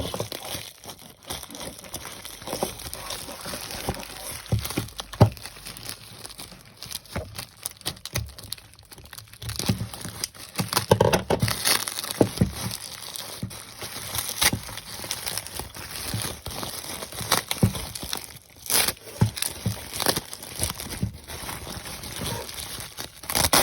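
Packing wrap crinkling and tearing as it is pulled off a built Lego set, with irregular sharp clicks and rustles throughout.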